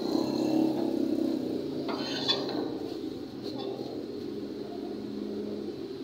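Backhoe's diesel engine running steadily while its toothed steel bucket drags and spreads crushed rock fill, with a few sharp clinks of stones against the bucket about two seconds in and again a second or so later.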